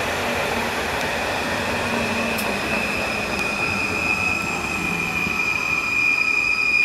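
PKP Intercity Stadler FLIRT electric multiple unit slowing into a station, its wheels rumbling under a high, steady squeal that holds one pitch and grows louder toward the end.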